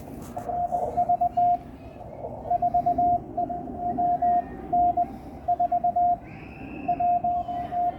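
Morse code (CW) from an amateur radio transceiver: a single steady beep keyed on and off in dots and dashes, over a background of band noise.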